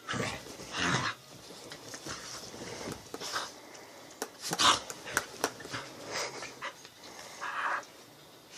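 Two small dogs play-wrestling, panting and scuffling in short, irregular bursts.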